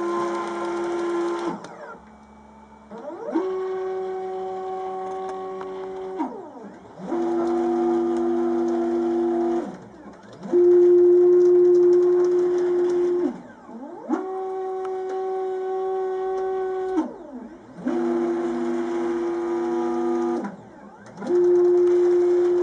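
Stepper motors of a homemade CNC router driving its gantry through a test path with no load. Each move is a steady pitched whine of about three seconds that glides up in pitch as the move starts and down as it stops, with a short pause before the next move; about six moves follow one another.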